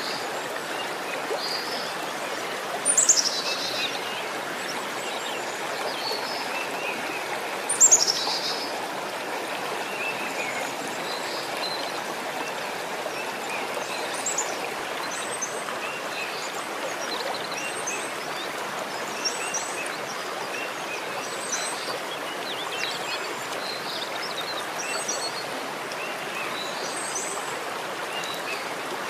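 Steady rush of running water, with birds calling: two loud, high calls falling in pitch about three and eight seconds in, then scattered short high chirps.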